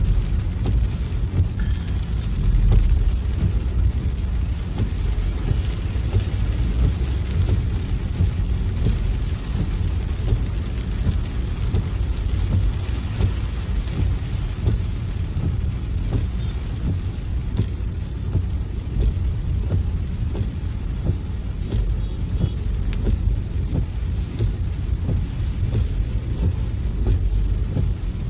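Heavy rain hitting a moving car's windshield and roof, heard from inside the cabin as a steady hiss full of small drop hits over the car's low road rumble.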